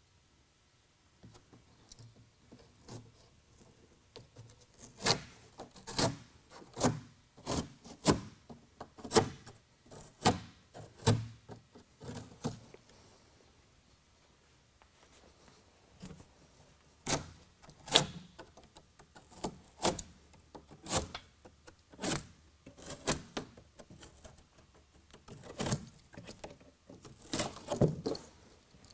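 Utility knife cutting open a cardboard shipping box: a long run of short, sharp slicing and scraping strokes, roughly one a second, with a lull of a few seconds midway.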